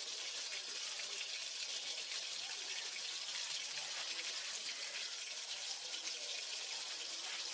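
Pieces of boal fish (wallago catfish) frying in hot mustard oil in a wok: a steady sizzling hiss with fine spattering.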